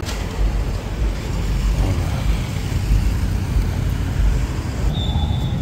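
Street traffic: cars and motorbikes driving past, a steady low rumble. A brief high tone sounds about five seconds in.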